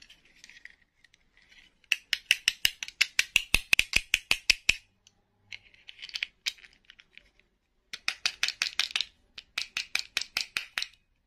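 Rapid plastic clicking and tapping on a small plastic doll and its hard clip-on skirt, about seven clicks a second, in two runs of about three seconds each with a short burst between.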